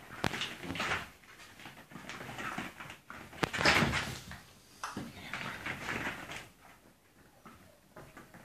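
Puppies scuffling in play over a braided rope toy on foam floor mats, with rustling and a few sharp knocks; busiest about three and a half seconds in.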